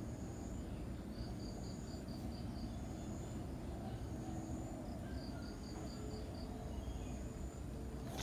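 Insects chirping: two trains of evenly spaced high pulses, about five a second, and a higher drawn-out note that repeats. A steady low rumble runs underneath.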